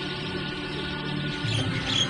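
Background music with held tones and a few soft low beats.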